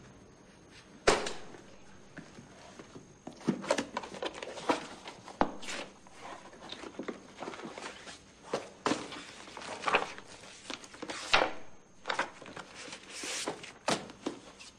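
A document folder and its papers being handled: repeated clacks and rustles as the folder is opened and pages are flipped, with one sharp knock about a second in.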